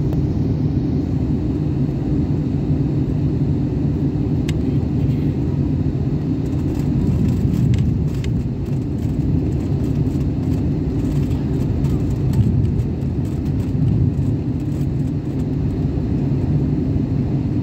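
Steady low drone of a jet airliner in cruise flight heard inside the cabin by the window: turbofan engine and airflow noise, with a few faint ticks.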